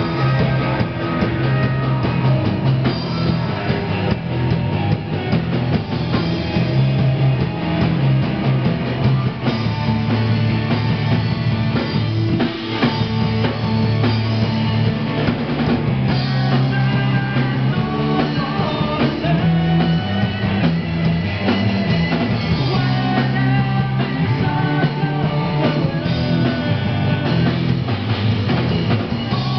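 Rock band playing live on amplified electric guitars with drums, continuous and loud.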